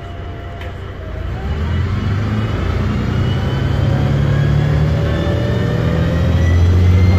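DAF DB250 double-decker bus with a Voith automatic gearbox pulling away and accelerating, heard from inside the passenger saloon: the engine grows louder about a second in and keeps building, with a faint whine rising in pitch above it.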